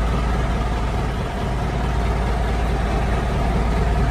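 Boat engine idling steadily, a constant low drone.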